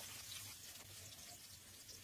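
Chopped garlic frying gently in olive oil: a faint, steady sizzle with small crackles.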